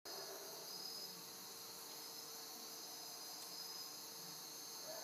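Faint, steady, high-pitched chorus of crickets and other night insects trilling.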